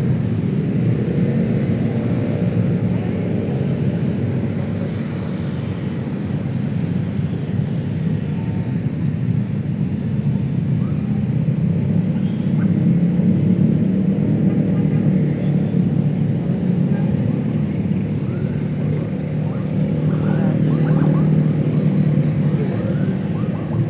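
City road traffic: a steady rumble of passing cars and motorbikes that swells and eases as vehicles go by.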